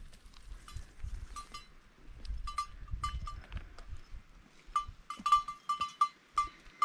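A bell worn by a sheep clinks irregularly as the sheep walks along the trail, in clusters, busiest near the end. Soft footsteps thud on the path underneath.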